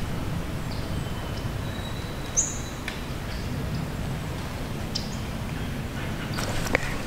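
Woodland ambience: a few short, high bird chirps, one sharp chirp about a third of the way in the loudest, and a thin held whistle in the middle, over a low steady rumble. Rustling and small clicks pick up near the end.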